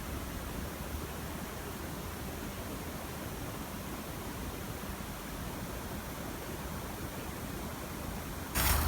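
Steady, even hiss of background noise. Near the end a much louder rustling with sharp clicks starts suddenly.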